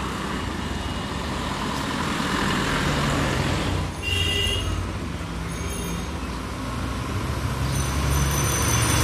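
Street traffic: an auto-rickshaw's small engine passes close. Then an Ashok Leyland covered truck's diesel engine approaches, its drone growing louder near the end, with brief thin high-pitched tones about four seconds in and again near the end.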